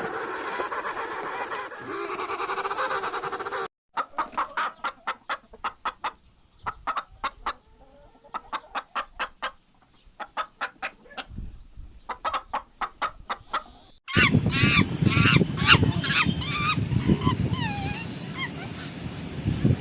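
Animal calls in three separate clips that cut in abruptly about 4 and 14 seconds in; the middle clip is a run of short, quick calls, several a second, in bursts.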